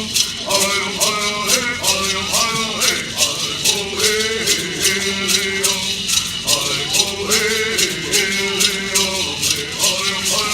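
A Kumeyaay bird song, sung to gourd rattles shaken in a steady beat of about three shakes a second.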